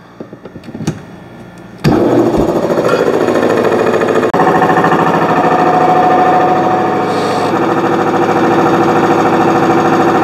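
Air compressor with a two-cylinder piston pump driven by a 3-horsepower electric motor, kicking on suddenly about two seconds in and then running steadily with a rapid, even pulsing as it pumps up the tank. A few light clicks come before it starts.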